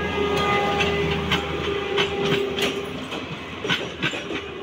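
A Plasser PBR-400R ballast regulator track machine and its coach rolling past at low speed, with a steady engine drone and the wheels clicking over rail joints in an uneven string of clicks. The noise eases off after about three seconds as it draws away.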